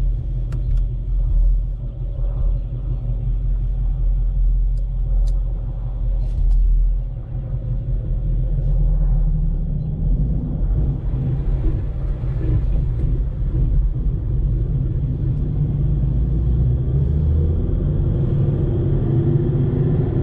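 Ford Mustang's 5.0 Coyote V8 on a gentle drive at light load, a steady low rumble with a brief dip about seven seconds in.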